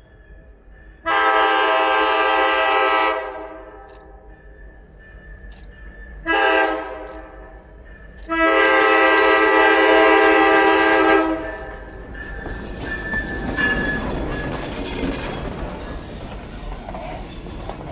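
An EMD F7 diesel locomotive blows its multi-note horn three times: a long blast, a short one, then another long one. It then runs past with its passenger cars, the engine rumbling and the wheels running on the rails.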